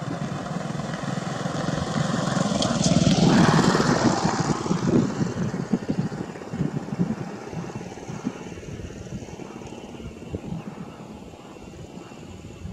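Airbus A321 airliner's jet engines at takeoff power during climb-out. A rough rumble swells to its loudest about three to four seconds in, then fades slowly as the aircraft moves away.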